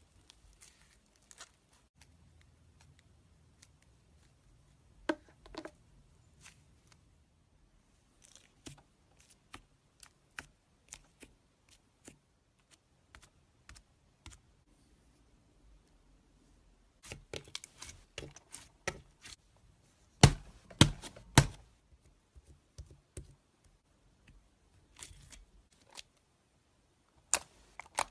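Slime being handled by hand: scattered sticky clicks and crackles, thickening into a run of pops, then three loud thumps in quick succession about two-thirds of the way through.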